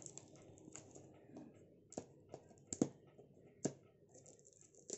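Quiet handling of a tape-wrapped parcel as its wrapping is pulled open: a handful of sharp, light clicks and ticks at irregular intervals over a faint rustle.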